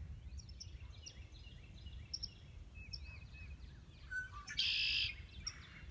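Birds chirping and whistling, with a red-winged blackbird's song ending in a loud buzzy trill of about half a second, about four and a half seconds in. A steady low rumble runs underneath.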